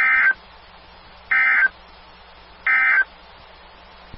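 Three short, identical bursts of buzzy warbling data tones, about a second and a third apart: the EAS/SAME end-of-message (EOM) code sent three times over NOAA Weather Radio to close the alert. A faint receiver hiss and low hum sit between the bursts.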